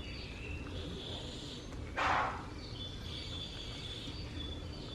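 A short burst of hissing noise, about half a second long, about two seconds in, over a steady low room hum with faint, broken high-pitched tones.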